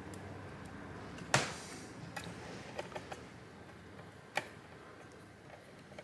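A few small metal clicks and taps from a screwdriver driving screws into a graphics card's metal bracket. The sharpest click, with a brief ring, comes about a second and a half in, and another follows a few seconds later, with fainter ticks between.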